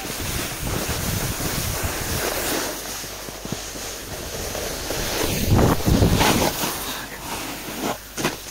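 Wind rushing over the microphone while riding down a ski slope: a steady rush that swells louder for a second or so just past the middle.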